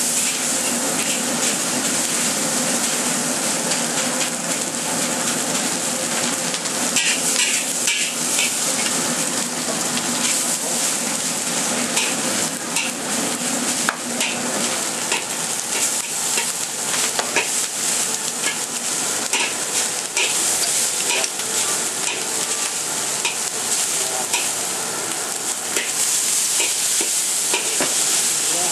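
Food sizzling steadily in a hot wok while a spatula scrapes against the wok in frequent short strokes, stir-frying egg and rice.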